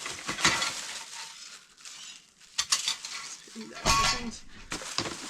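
Metal dish-drying rack being handled, its parts clinking and rattling in irregular clatters, the loudest about half a second in and again near four seconds.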